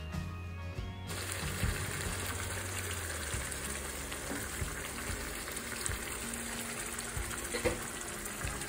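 Background music for about a second, then chicken pieces sizzling and crackling steadily as they fry in a thick spice paste in the pot.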